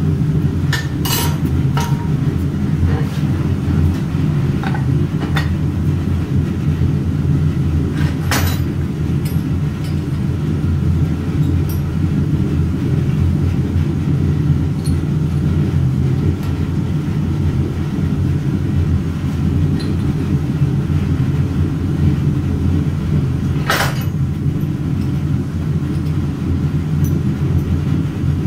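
Steady low mechanical rumble with a few sharp metallic clinks, the loudest about eight seconds and about twenty-four seconds in.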